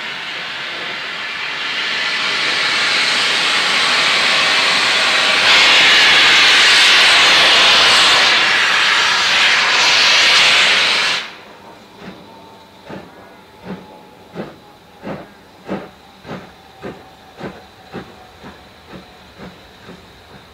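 A BR Standard Class 4MT 2-6-0 steam locomotive moves off with its cylinder drain cocks open, giving a loud steady hiss of steam. The hiss cuts off suddenly about eleven seconds in as the cocks are closed. Then its exhaust beats take over, about one and a half a second and slowly quickening as the train gathers speed.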